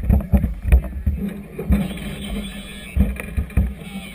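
Choppy river water slapping against the hull of a moored floating clubhouse vessel: a run of irregular low thumps and knocks, several in quick succession at the start and a few more about three seconds in, over a low rumble.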